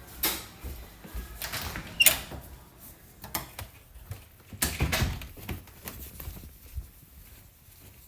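Short knocks, rustles and clicks of a door being handled, with a sharp click about two seconds in as the loudest sound and a second cluster of knocks around five seconds.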